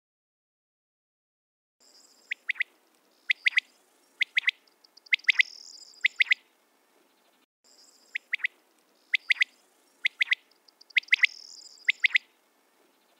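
Corncrake calling its rasping two-part 'crex crex', the paired strokes repeated about once a second. It starts about two seconds in and comes in two runs with a short pause between them.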